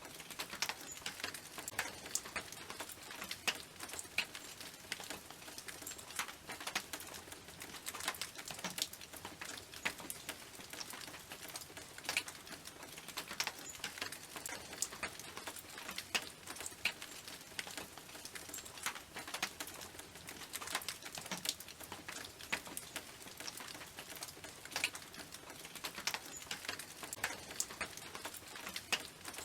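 Rain pattering on a tin roof: a steady hiss of rain with dense, irregular sharp ticks of individual drops striking the metal.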